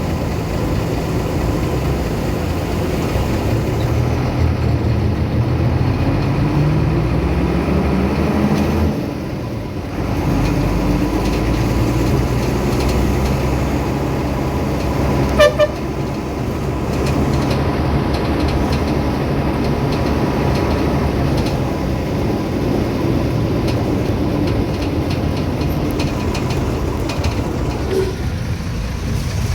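A motor vehicle's engine running under way, with the engine note climbing as it accelerates and dropping briefly about nine seconds in, as at a gear change. A short horn toot sounds about halfway through.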